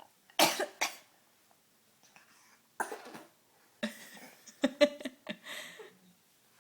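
A baby's imitation coughs: several short, forced coughs in a row with pauses between them.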